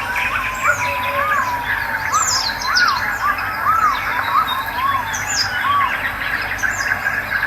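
Wild birds calling: a string of clear whistles that rise and fall in pitch, one every half second or so, with quicker high chirps from other birds over them.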